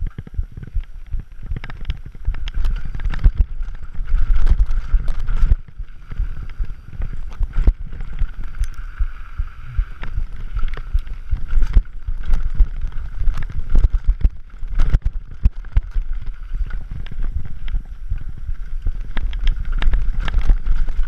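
A Scott Gambler downhill mountain bike descending a rough dirt and rock trail: tyres rolling over dirt and stones, wind buffeting the microphone, and frequent sharp knocks and rattles of the bike over bumps.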